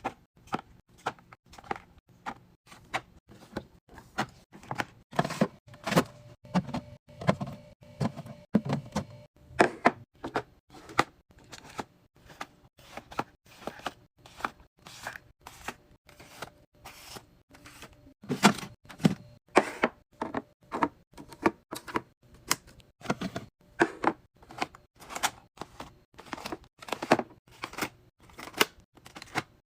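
Irregular run of clicks, taps and knocks, a few of them heavier thuds, from food and drink items and containers being set down and arranged in a fridge.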